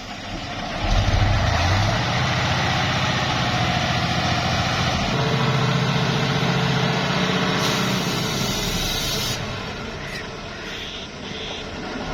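Nissan dump truck's engine running under load, surging louder about a second in and holding a deeper note in the middle, with a short hiss of air partway through.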